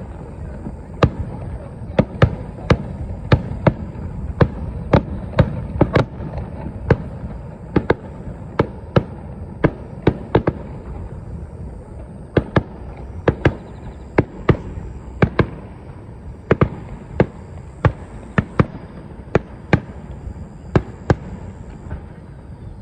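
Fireworks display: aerial shells bursting in a dense, irregular run of sharp bangs, about one to two a second, over a continuous low rumble.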